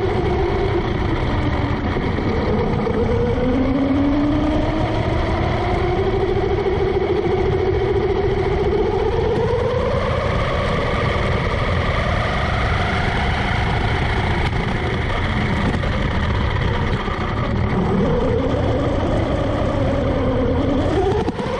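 Onboard sound of a 1/8-scale brushless electric RC car driving: the motor and drivetrain whine rises and falls in pitch as the car speeds up and slows down, climbing steadily for the first half, dropping low near the end, then rising again. Under it runs a steady rumble of the tyres rolling over rough asphalt.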